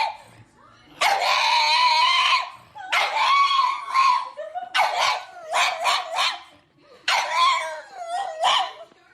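A dog howling and yipping in high-pitched calls: two long drawn-out howls, then a run of short yips and a wavering howl near the end.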